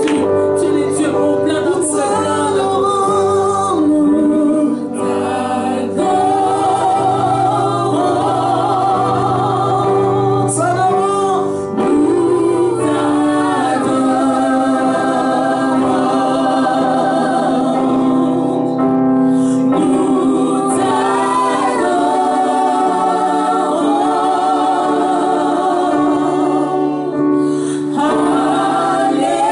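Gospel worship singing: several voices sing long wavering notes over held instrumental chords.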